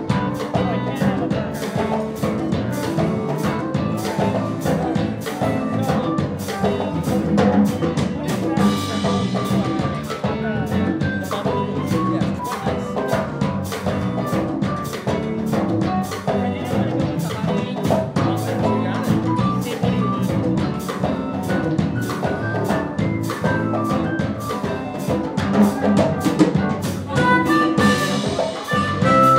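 Live band playing an instrumental groove: a drum kit keeping a steady beat under electric bass and saxophone. A harmonica comes in near the end.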